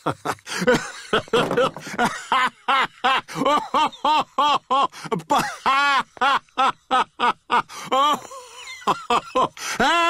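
A man's hearty, uncontrollable laughter: a long run of loud 'ha' bursts, about three a second, each swinging up and down in pitch, with a brief lull about eight seconds in before it starts again.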